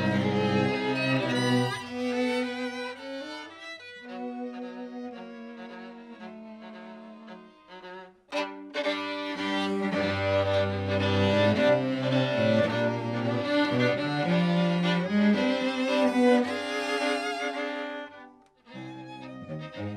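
Live string trio of violins and cello playing a classical piece with bowed, held and moving notes. A softer passage is followed by a brief break about eight seconds in, then fuller, louder playing, with another short pause near the end.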